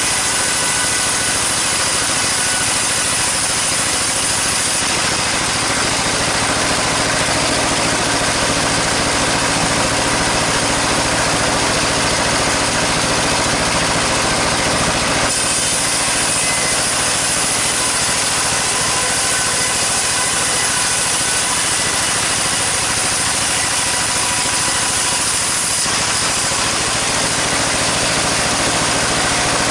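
Sawmill saw running continuously, cutting sengon timber, over the steady hum of the machine's motor. The cutting noise turns harsher about halfway through and eases again near the end.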